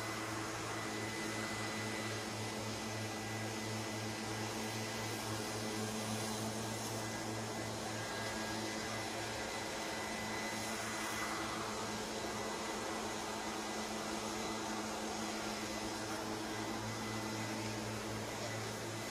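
A steady, unchanging hum with a constant hiss underneath and no separate events.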